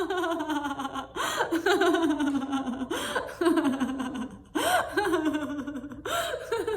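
A woman laughing in the 'ha ha' laughter of a laughter-yoga exercise: runs of laughs falling in pitch, each broken by a quick gasping breath, about four times.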